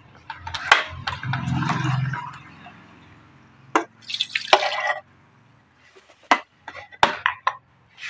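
Water poured from a mug into a stainless-steel electric kettle, a splashing hiss lasting about a second around the middle. Sharp clicks and knocks of the kettle's plastic lid come before it and again near the end as the lid is shut.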